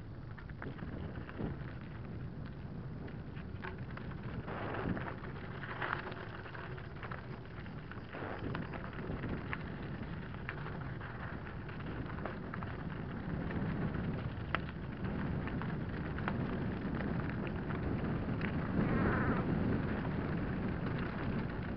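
Mountain bike rolling fast down a loose limestone gravel track: a low rumble with many small clicks and knocks of stones and rattling parts, getting louder toward the end.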